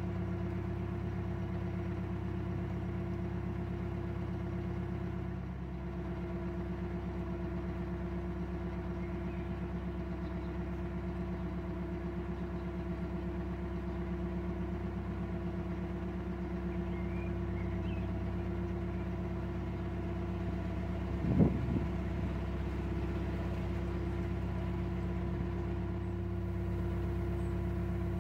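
Narrowboat's diesel engine running steadily at cruising revs, with one short knock about three-quarters of the way through.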